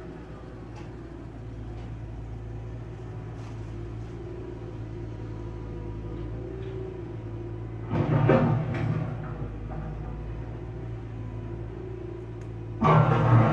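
Steady low engine hum of a vehicle running in the yard, with a louder, rougher burst of sound about eight seconds in and another near the end.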